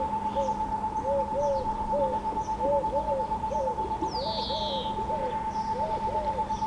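A dove cooing in repeated three-note phrases over a steady high whine, likely the boat's Engiro electric drive motor running while cruising. A small songbird gives a short falling trill about four seconds in, among faint chirps.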